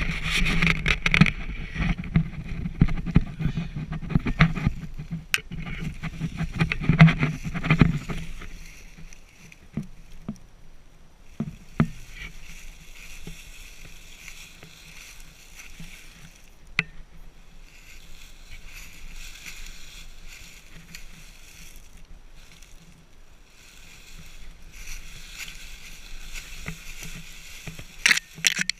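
A deer carcass being dragged over the forest floor: dense scraping and rustling, loudest for the first eight seconds. Then it turns to quieter, intermittent rustling with a few sharp knocks, and picks up again near the end.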